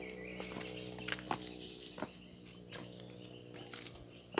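Steady high-pitched trill of insects in the surrounding vegetation, with a few light footsteps on concrete steps.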